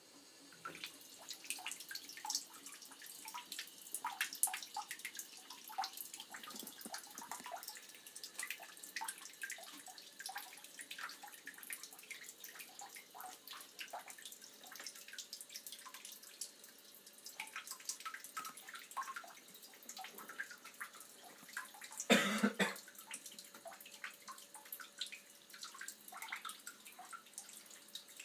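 Water dripping and trickling into a full bathtub: many small, irregular drops and splashes. There is one brief, louder noise about three-quarters of the way through.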